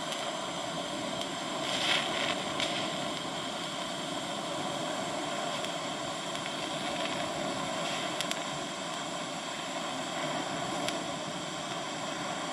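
TIG welding arc from a Yeswelder 200P inverter welder running at 80 amps on 1/8-inch mild steel. It gives a steady hiss and buzz, with a few brief crackles, the first about two seconds in.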